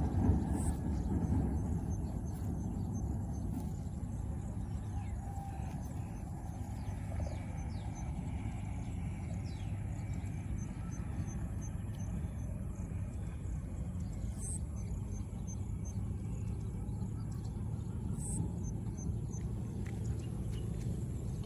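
Outdoor ambience: a steady low rumble, a brief louder noise in the first second, and faint high chirps repeating evenly about four times a second.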